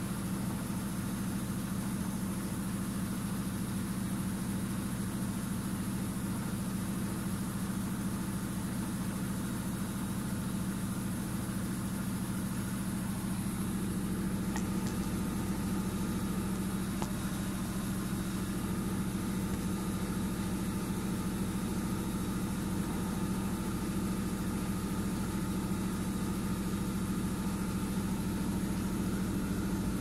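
Arçelik front-loading washing machine running, its drum turning with a steady motor hum and low rumble; the rumble shifts slightly about halfway through.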